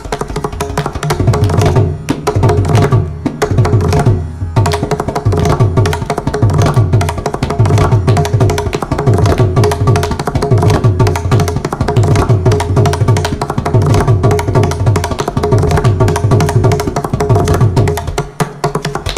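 Mridangam solo: fast, dense strings of crisp right-head strokes over booming left-head bass strokes, phrased in chatusram, four strokes to the beat. A steady tanpura drone sounds beneath.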